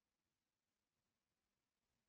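Near silence: no audible sound at all.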